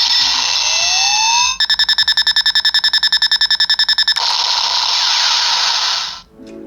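Electronic sound effect from a Bandai DX Delta Driver toy belt's speaker: a rising charging tone over a hiss, then rapid pulsing beeps about ten a second, then a long noisy blast that cuts off near the end. It is the finishing-attack sequence that plays after the belt's "check" call.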